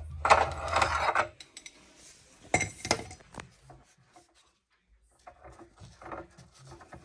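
Metal parts and tools clattering and clanking as they are handled, loudest through the first second and again around two and a half seconds in, then a few lighter knocks. A low steady hum stops about a second in.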